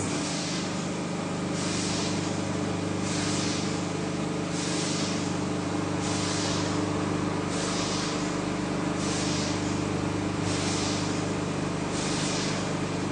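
The machinery of a beeswax-foundation mould press running: a steady electric hum, with a short hiss repeating about every one and a half seconds.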